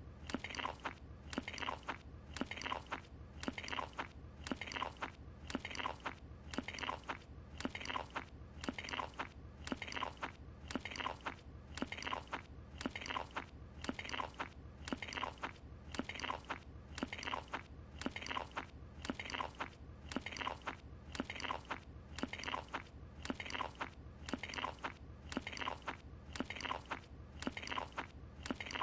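Cartoon chewing sound effect: loud crunching, mouth-full bites of a croissant, one short chewing loop repeating evenly about once a second.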